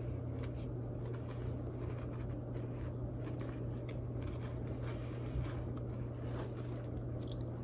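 Quiet eating sounds from a cheese-and-crackers meal: faint scattered clicks and scratches of chewing and handling food, over a steady low hum.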